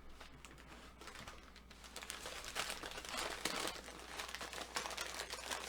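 Paper fast-food wrapping crinkling and rustling in irregular handfuls as it is handled, growing busier about two seconds in.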